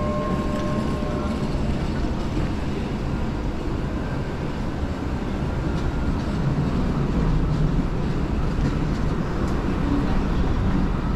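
Tram rolling past with a steady low rumble, the ring of its bell fading out in the first second or so.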